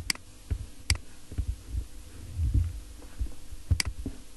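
Computer mouse clicks: three sharp clicks spread over a few seconds, with soft low thumps and a faint steady electrical hum between them.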